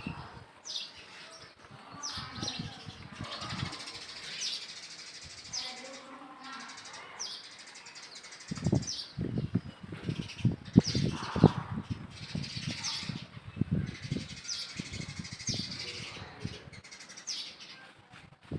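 Birds chirping outdoors: short, high chirps that fall in pitch, repeating every second or so. Through the middle stretch there are low, irregular thumps and rustling.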